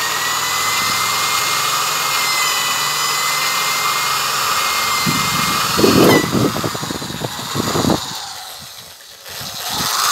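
Hyundai D-850 Expert corded drill running at its lowest speed setting, boring into a wooden plank with a steady motor whine. About six seconds in the whine breaks off into a rougher, uneven sound, and about eight seconds in the drill winds down.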